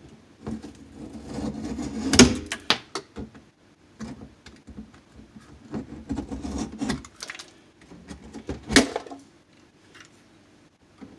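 Irregular knocks, clicks and scraping as a piece of drywall is cut and handled by hand, with two sharp louder knocks, about 2 seconds in and near 9 seconds.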